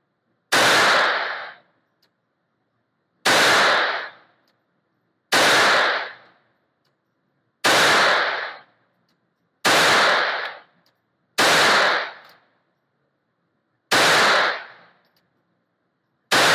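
Beretta 21A Bobcat .22 LR pocket pistol fired slowly, shot after shot, about eight shots two to two and a half seconds apart. Each shot is sharp, with a short echoing tail from the indoor range.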